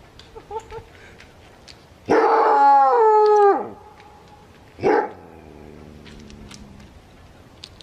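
A canine's long howling cry, about a second and a half, dropping in pitch twice before it ends, followed about five seconds in by one short yelp.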